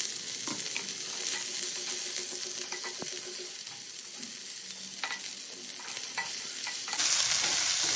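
Onion wedges sizzling in hot oil in a non-stick frying pan, stirred with a wooden spatula that scrapes and knocks against the pan now and then. The onions are being fried down as the base of a masala.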